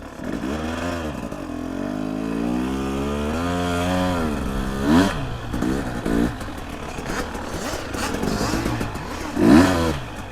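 Off-road engine revving up and down, its pitch climbing and falling repeatedly under throttle. There are two short, sharp blips, one about five seconds in and one near the end.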